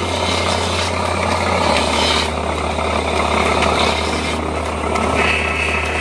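Motor-driven polishing wheel running with a steady low hum, a balisong handle pressed against it so the buffing noise varies in strength. The noise turns brighter and higher near the end.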